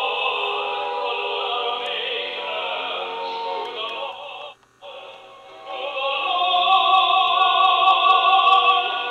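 Recorded church singing played back from a cassette tape through a small portable cassette recorder's built-in speaker, sounding thin and tinny. The sound drops out briefly about halfway, then the singing comes back louder.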